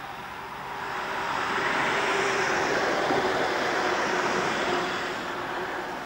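A road vehicle passing by: its tyre and engine noise swells up about a second in and fades away near the end.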